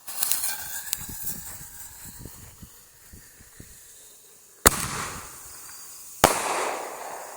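Consumer canister-shell firework fired from a mortar tube. The lit fuse sputters and hisses, fading over a few seconds. A sharp bang comes about four and a half seconds in as the shell lifts off, and a second bang about a second and a half later as the shell bursts.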